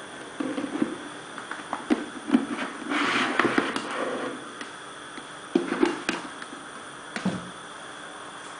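Handling noise from a plastic waste basket as a lamp cord is pulled through a hole in its base: scattered light plastic knocks and clicks, a rustling scrape about three seconds in, and a duller knock near the end.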